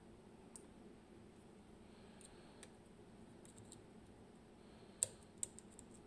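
Lock-picking tools clicking against the metal of a Magnum Atlantic cylinder lock: faint scattered ticks, then two sharper clicks about five seconds in.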